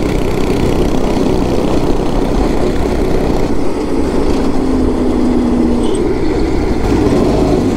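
Go-kart's small single-cylinder engine running steadily under way, heard from the driver's seat with the rush of wind on the microphone. A short steady tone joins a little past the middle.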